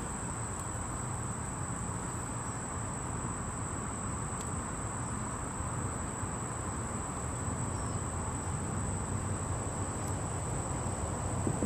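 Insects calling in one steady, unbroken high-pitched drone, over a steady low rumbling hiss of outdoor background noise.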